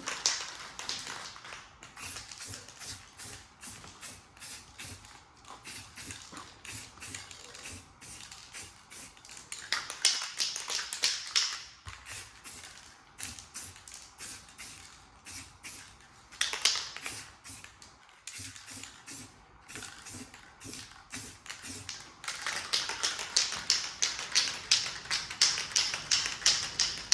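Aerosol spray paint hissing in bursts, one of about two seconds, a short one, then a long one near the end, as a steel wheel is given a coat. A steady run of light clicks and taps goes on underneath.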